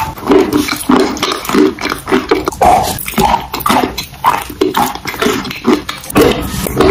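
Close-miked chewing and biting of a chocolate-coated bar: a quick, irregular run of mouth clicks and smacks.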